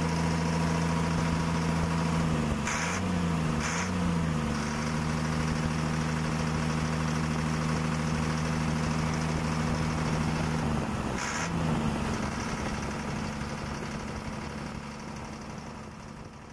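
Motor of a homemade miniature borewell compressor truck running with a steady hum. Its pitch sags and recovers briefly about three seconds in, again a second later, and once more near the middle, each time with a click. The sound fades out over the last few seconds.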